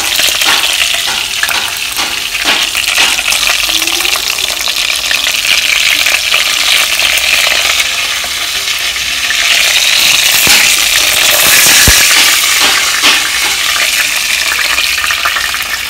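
Blue jackfish steaks deep-frying in hot oil in a pot: a steady sizzle, with the clicks and scrapes of a spatula turning the pieces. The sizzle swells louder about two thirds of the way through.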